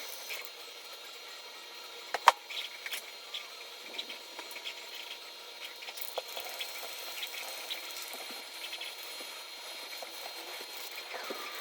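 Aerosol spray paint-and-primer being sprayed onto a 3D-printed plastic part: a faint steady hiss with scattered small clicks and knocks from handling, the loudest knock about two seconds in.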